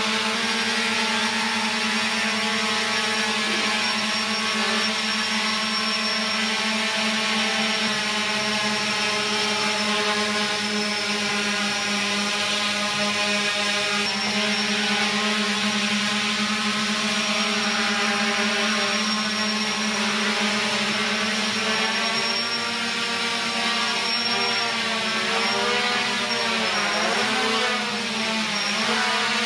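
Quadrotor drone's electric motors and propellers whining in flight, a steady pitched hum. About two-thirds of the way through the pitch starts wavering up and down as the motors speed up and slow down, while the tethered drone tilts and pulls against its line.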